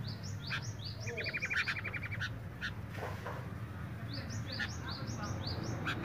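Sooty-headed bulbuls chattering in breeding condition: runs of short, quick high chirps, with a fast rattling trill about a second in, and another run of chirps near the end.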